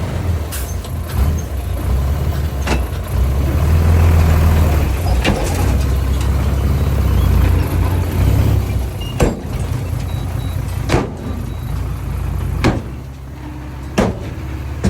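Heavy diesel earthmoving machinery running with a steady low rumble, punctuated by about nine sharp knocks at irregular intervals. The rumble eases a little near the end.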